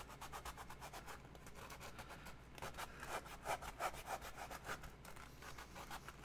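A hand sanding tool scraping back and forth on costume foam in quick, even strokes, several a second, louder in the middle. The tool is tearing foam out of a part that catches and fits too tightly.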